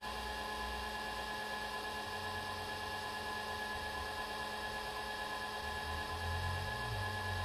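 Electric pottery wheel motor running at a steady speed, a constant whine with several fixed tones. A low rumble swells near the end.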